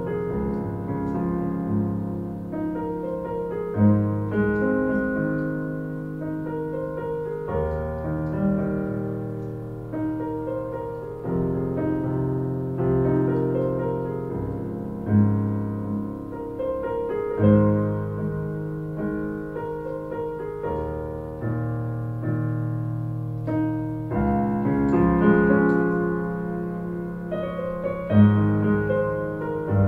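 Electronic arranger keyboard played in a piano voice: a melody over sustained chords and low bass notes, with the chords changing about every two seconds.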